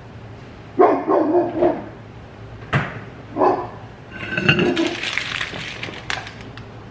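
A dog barking several times in the first half, then clattering and rattling of things being handled on a kitchen counter.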